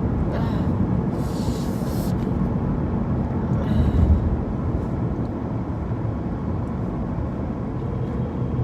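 Steady low rumble of road and engine noise inside a moving car's cabin. Two brief hisses come through about a second and about four seconds in.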